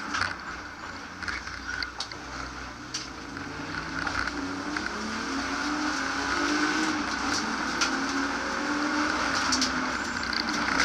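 BMW E36 328i's 2.8-litre straight-six heard from inside the stripped-out cabin at track speed, quieter for the first few seconds through a chicane, then growing louder as the car accelerates. Sharp clicks come through the run.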